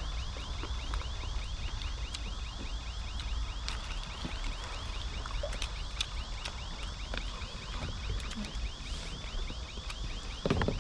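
A cicada singing a fast, steady run of rising-and-falling chirps, about five a second, over a low wind rumble on the microphone. A short knock near the end.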